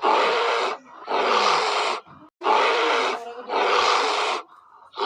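A large wild animal roaring: four harsh calls, each under a second long and separated by short pauses.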